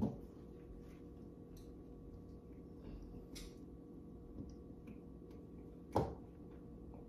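Light ticks and clicks of a potted plant being handled and looked over, with a sharp knock at the start and another about six seconds in, over a faint steady hum.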